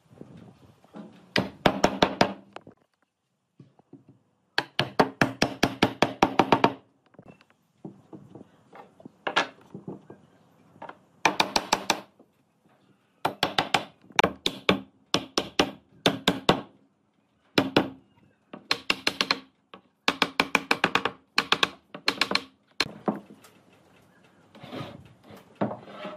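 Repeated hammer blows on wood, driving glued tenons of a pine frame home into their mortises. The strikes come in quick clusters of several a second, with short pauses between clusters.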